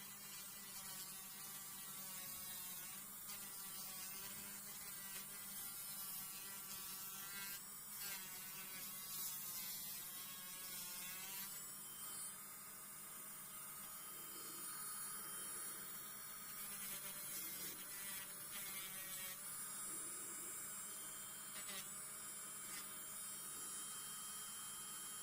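Small electric nail drill (e-file) motor running with a whining hum that wavers up and down in pitch, steadier in the second half.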